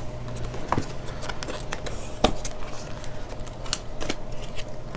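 Long cardboard box of a diamond painting kit being handled and opened by hand: scattered clicks, taps and rustling scrapes, with one sharper knock about two seconds in.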